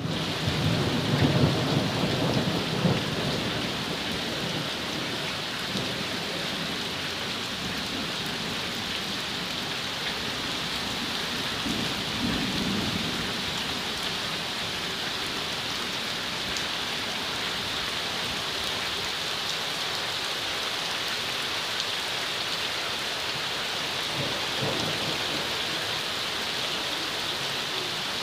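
A heavy downpour of rain and hail, a dense steady hiss of falling drops and stones. A low rumble swells over the first three seconds, and fainter rumbles come about twelve and twenty-five seconds in.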